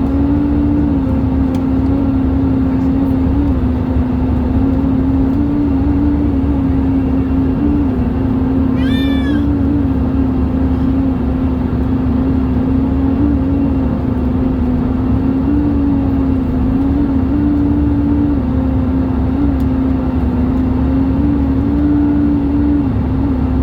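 Airbus A320 cabin noise in flight: a loud steady rush with a droning hum that wobbles slightly up and down in pitch, the strange noise heard in the cabin. A brief high squeak about nine seconds in.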